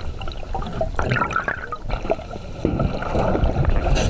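Water rushing and sloshing, with scattered knocks and splashes.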